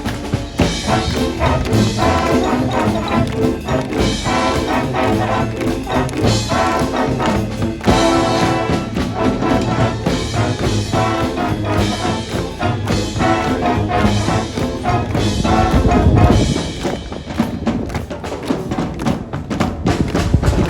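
Live marching band playing: a brass section carrying the tune over drums, with a loud swell about sixteen seconds in.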